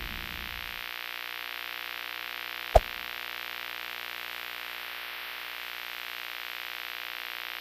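A sustained electronic synthesizer drone, many held tones over a steady hiss, as a music intro, with one sharp click about three seconds in.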